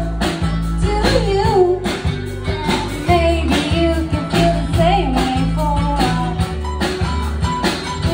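Live band music: a strummed acoustic guitar over steady electric bass notes, with a woman singing the melody through a PA.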